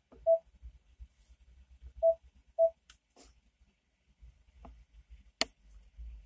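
Three short, mid-pitched electronic beeps: one soon after the start, then two close together about two seconds in. A single sharp click comes about five seconds in, over a faint low rumble.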